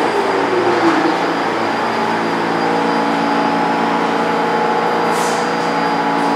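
R46 subway train braking to a stop at a station platform, with a falling whine in the first second as it slows. Then comes a steady hum from the standing train, with a short hiss of air about five seconds in.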